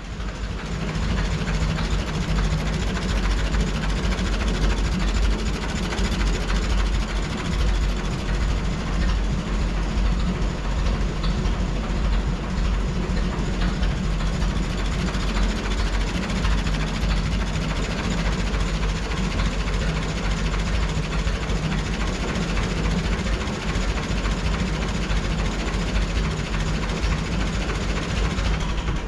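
1924 Fordson Model F tractor's four-cylinder side-valve engine idling slowly and steadily.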